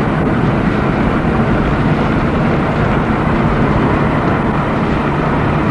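Steady rushing noise of a car driving, heard from inside the cabin.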